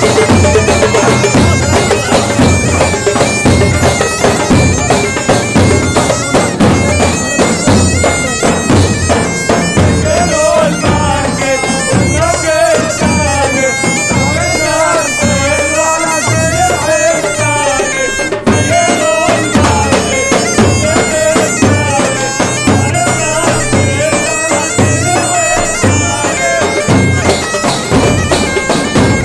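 Bagpipes playing a wavering melody over their steady drones. Large double-headed drums and hand-held frame drums keep up a steady, driving beat underneath.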